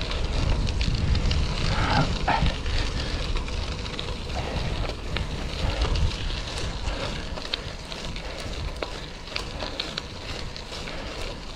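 Wind rumbling over the microphone of a moving bicycle, with a steady crackle of tyres rolling on gravel; the rumble eases after about six seconds.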